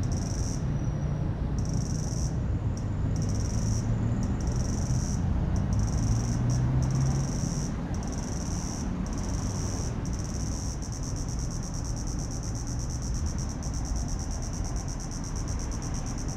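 High-pitched insect chirring in short on-off trains, turning into a continuous fast pulsing about ten seconds in, over a steady low rumble of city traffic with a vehicle engine running through the first half.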